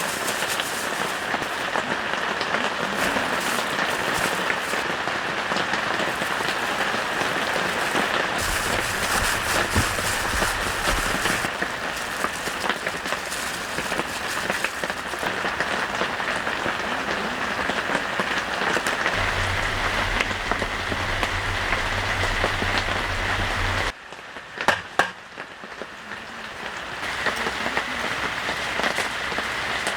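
Heavy rain falling steadily, a dense even hiss, dropping quieter for a few seconds near the end, where a couple of sharp knocks sound before the rain comes back up.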